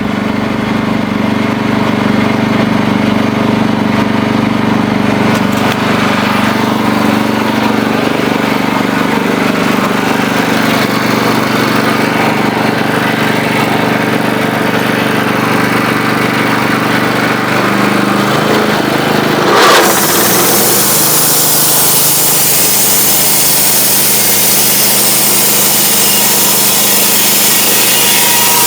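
Wood-Mizer band sawmill running steadily; about two-thirds of the way in, the blade bites into the board and a bright, hissing cutting sound joins the engine and carries on.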